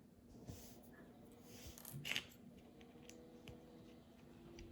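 Faint clicks and rustling of plastic building-block pieces being handled and fitted together, with the loudest click about two seconds in.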